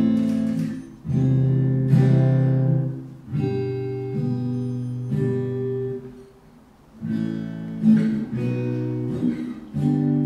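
Acoustic guitar strumming chords, played through a Voiceprint DI pedal with its acoustic-emulation effect switched on. There are about eight strums, each chord left to ring, with a short quiet gap about six seconds in.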